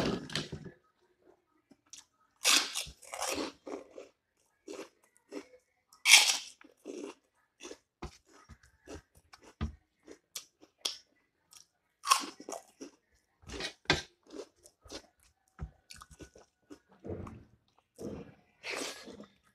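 A person chewing and crunching a mouthful of food, in irregular bursts of crackly sound.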